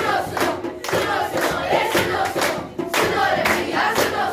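A group of children chanting together in unison, clapping along about twice a second.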